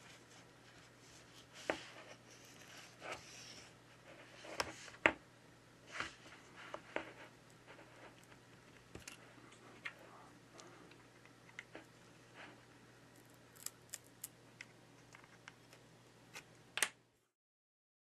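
Thin plastic cards and guitar picks scraping and sliding along the glued edge of a tablet's glass screen as the adhesive is cut, with scattered small clicks and short scrapes. The sound stops abruptly near the end.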